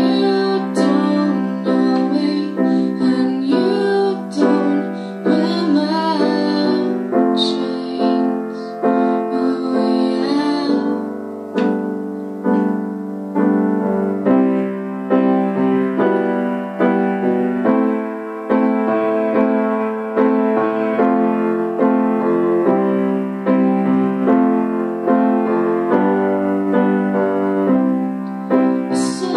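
Grand piano playing chords and a melody, with a young woman singing into a microphone over it. The voice drops out about ten seconds in and the piano carries on alone, and the singing comes back right at the end.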